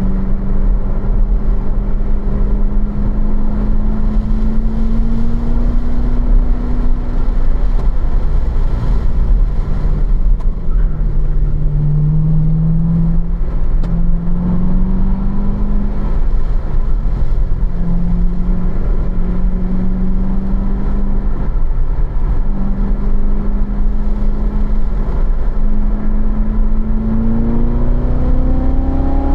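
2015 Corvette Z06's supercharged V8 heard from inside the cabin, pulling in third gear at mid revs while lapping a road course. Its pitch dips for a few seconds about a third of the way in as the car slows through a corner, steps back up, and rises steadily near the end as it accelerates onto a straight. Road and wind noise run under it.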